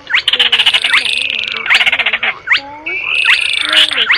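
Baillon's crake lure recording: repeated dry, rapid rattling trills mixed with frog-like croaks and quick upward-sweeping notes, over a wavering lower tone.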